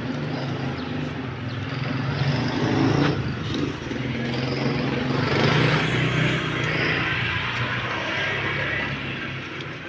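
Motor vehicle engine running as it passes by, growing louder toward the middle and fading near the end.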